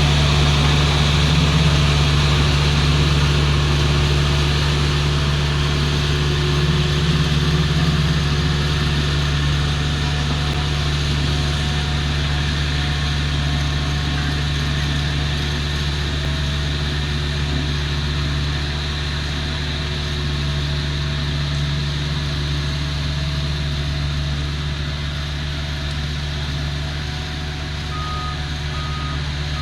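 Volvo road roller's diesel engine running steadily at a constant speed. Near the end, a reversing alarm starts beeping about once a second.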